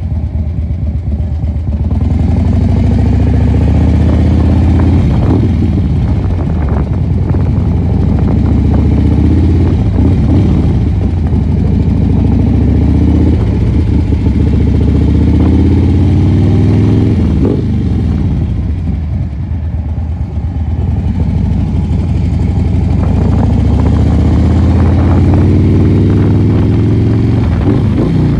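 Harley-Davidson Dyna Super Glide Custom's S&S 107 cubic inch V-twin, through a Vance & Hines 2-into-1 exhaust, accelerating through the gears. The engine pitch climbs and drops sharply at each upshift, four times in the first two-thirds, eases off for a few seconds, then climbs again near the end.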